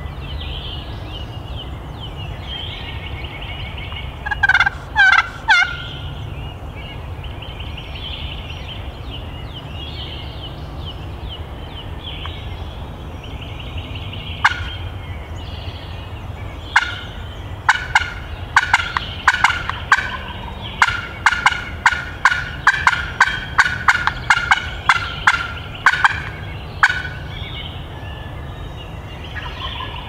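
Wild turkey gobbling: a loud, quick rattle of notes lasting about a second, four seconds in. From about halfway, a long run of sharp, quick turkey calls follows, two or three a second for about ten seconds.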